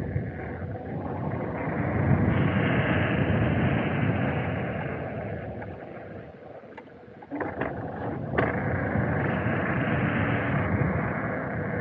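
Rushing wind noise on the microphone of someone riding along. It eases off briefly a little past the middle and then picks up again. A few sharp clicks and knocks sound as it returns.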